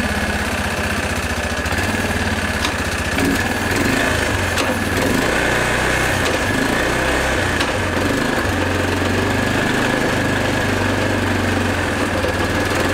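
Bashan 250 quad engine running steadily in gear with the rear wheels off, its rear drive turning freely with no load on it, a steady high whine over the engine note.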